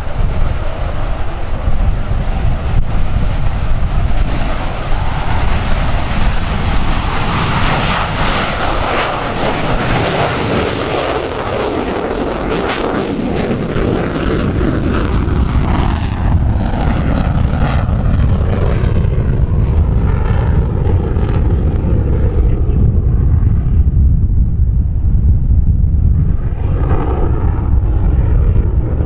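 Twin General Electric F414 turbofans of an F/A-18F Super Hornet, a loud jet roar as it takes off and climbs away. The high hiss is strongest through the first half and thins out in the second half, leaving a low rumble.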